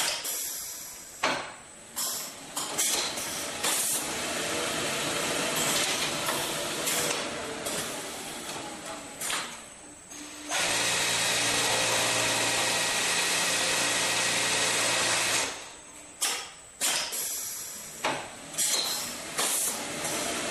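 U-3102-E/PS shirt front creasing press working through its cycle: a series of short hissing releases that each die away quickly, and about halfway through a steady run with a low hum lasting about five seconds.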